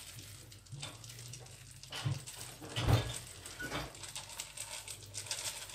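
Chocolate sprinkles being shaken from a small bowl onto a cream-topped cake: light scattered rustling, with a few dull knocks about two and three seconds in.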